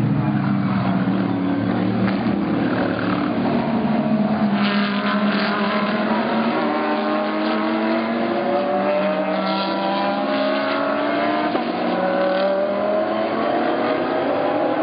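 GT3 race car engines at full throttle, several engine notes overlapping and climbing in pitch as the cars accelerate.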